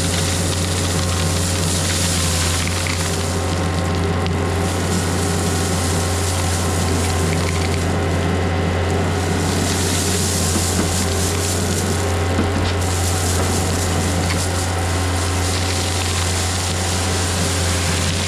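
Diesel engine of a Takeuchi machine running steadily under work, with a rushing hiss over it that swells and fades several times.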